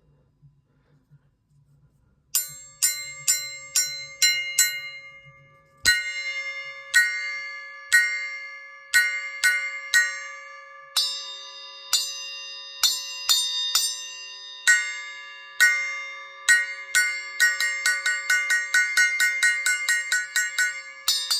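Zildjian 7-inch FX Blast Bell, a small cast effects bell cymbal, struck over and over, each hit ringing with a bright, piercing high tone. After a short silence, a quick run of strikes gives way to slower hits about one a second, with one heavier hit carrying a low thump about six seconds in. A second, lower ringing tone joins about halfway, and the playing speeds up to about four strikes a second near the end.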